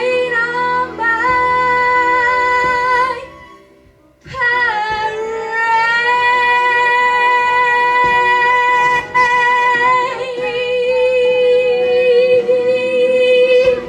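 A woman singing over backing music: a sustained phrase, a brief break about four seconds in, then one long held high note of about nine seconds, the closing note of the song.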